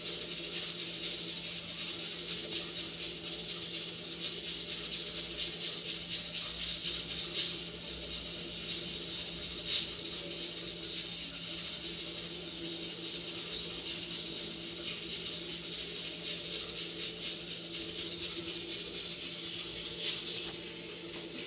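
A steady low hum with hiss, and a few soft clicks of a small knife slicing a tomato held in the hand.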